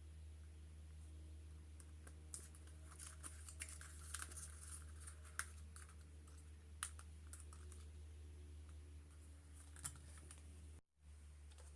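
Faint scattered clicks and light taps, most of them between about two and five seconds in, over a low steady hum; the sound drops out briefly near the end.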